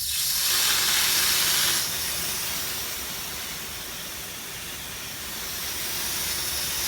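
Water spraying out of the opened first test cock of a 25mm Wilkins double check valve backflow assembly under mains pressure, a loud hiss. The test port is being flushed of debris. The hiss eases after about two seconds and slowly builds again toward the end.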